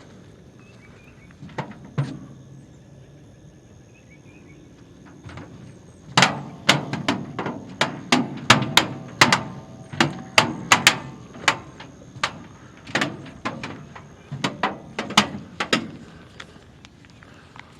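Footsteps on wooden dock planks: a couple of knocks, then a steady walk of hollow thuds at about two steps a second.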